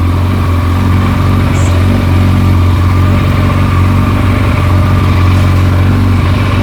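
Kawasaki ZZR1400's inline-four engine idling steadily just after starting, with no rattle from the clutch side: the loose clutch bearing stopper behind the noise has been tightened.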